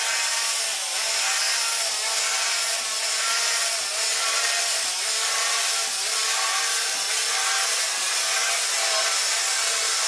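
Upright vacuum cleaner running steadily with a high motor whine as it is pushed back and forth over carpet, with a light knock about once a second at each stroke.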